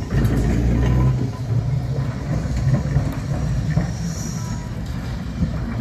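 Vintage electric tram rolling past on its rails: a low rumble of wheels and running gear, loudest about the first second, with faint high wheel squeals.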